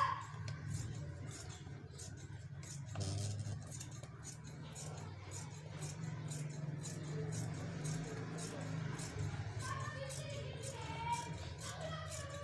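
Scissors cutting through cloth: a steady run of short snips, about two a second, over a low steady hum.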